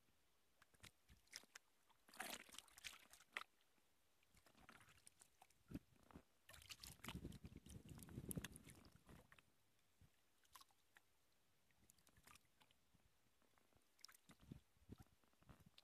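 Faint kayak paddling: water splashing and dripping off the paddle in crackly bursts, a short one about two seconds in and a longer, louder one near the middle, with scattered small clicks and drips between.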